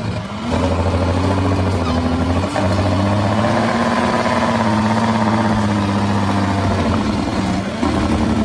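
A heavy vehicle's engine running under load, its pitch rising and falling, with brief dips about half a second and two and a half seconds in.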